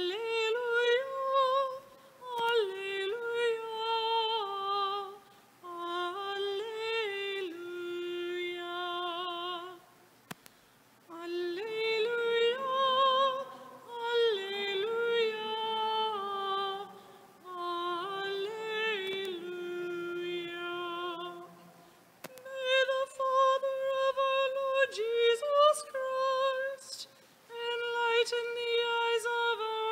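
A woman's voice singing the Alleluia, the Gospel acclamation of the Mass, in held phrases with vibrato and short breaths between them.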